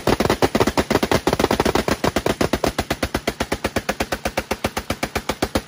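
Continuous automatic gunfire in one long unbroken burst, about ten shots a second.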